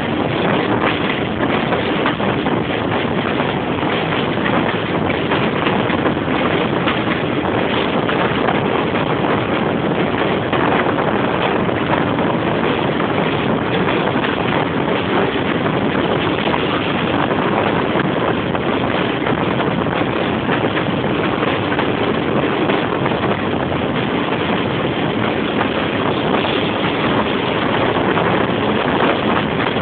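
Class 25 diesel locomotive's Sulzer six-cylinder engine working hard at the head of the train, a loud steady thrash mixed with the run of the train, heard from an open carriage window with wind buffeting the microphone.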